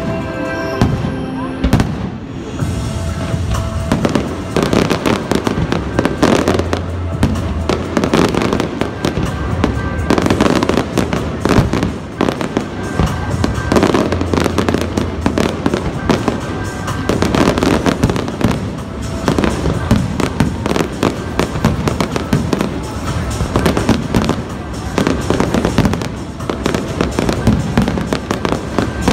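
Aerial fireworks display firing continuously, with many shell bursts in quick, overlapping succession, and music playing underneath.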